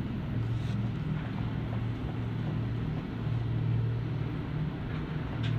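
A ship's machinery hums low and steady with a faint rushing hiss over it, swelling and easing slightly. There is a faint tick near the start and another near the end.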